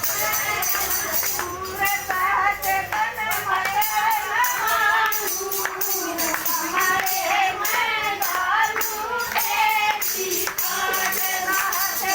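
A woman singing a Haryanvi folk bhajan in a high voice, over jingling percussion that keeps a steady beat.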